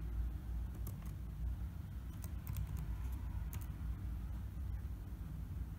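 A few short computer-keyboard key clicks, spread out over several seconds as a short number is typed into a search box, over a steady low hum.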